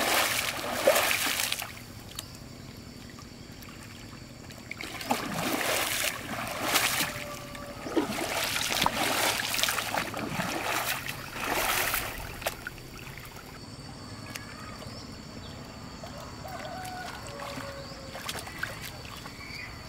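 Pond water splashing in several loud bursts as a wading person slaps and sweeps the surface with her arms, then quieter wading and swishing water in the second half.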